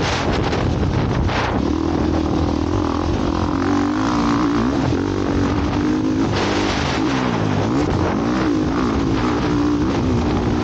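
Motocross bike engine revving on the track, its pitch rising and falling again and again as the throttle is opened and closed.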